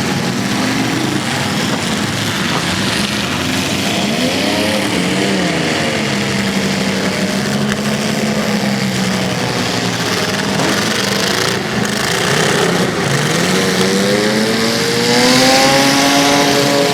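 Several demolition derby cars' engines revving hard together, their pitch rising and falling as the cars accelerate and back off, with one engine climbing sharply near the end.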